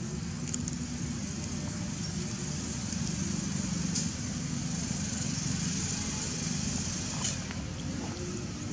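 Steady outdoor background noise: a low rumble under a constant high hiss, with a few faint ticks.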